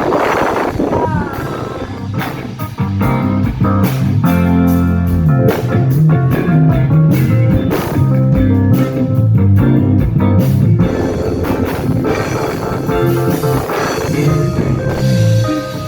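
Live band playing an instrumental passage through the PA at a sound check: guitar, bass guitar and drum kit with no vocals, the bass stepping through notes under steady drum hits.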